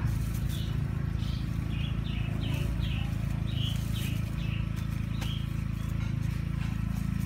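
A small bird chirping a quick run of short high notes, two or three a second, stopping about five seconds in, over a steady low hum.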